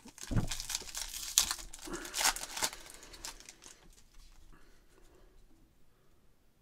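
Foil wrapper of a trading card pack being torn open and crinkled as the cards are pulled out: a run of sharp crackles for about three and a half seconds, then fading away.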